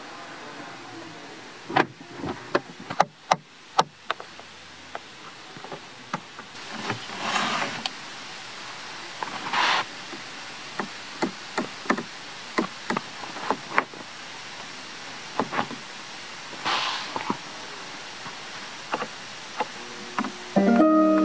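Clicks and knocks of a Rolls-Royce's console controls and dials being pressed and turned, scattered irregularly, with a few brief swishes. Near the end, several steady tones begin.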